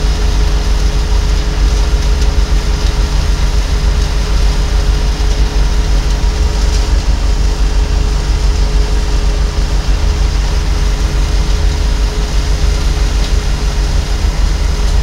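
Tractor engine driving a Kverneland bale shredder, running steadily under load with a constant whine from the straw-blowing rotor over a heavy low rumble. It cuts off abruptly at the end.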